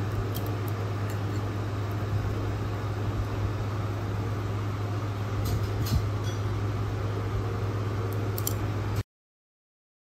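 Steady low machine hum of room ambience, with a few light clicks of chopsticks against a bowl; the sound cuts off abruptly about nine seconds in.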